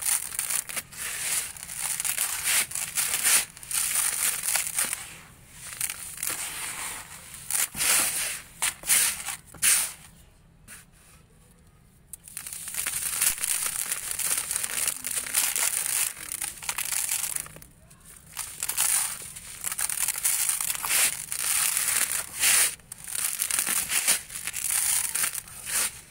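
Dry sand-cement clumps crushed and crumbled between the hands, the loose grains pouring back onto a bed of dry sand with a dry, crackling hiss, handful after handful. It falls quiet for about two seconds near the middle.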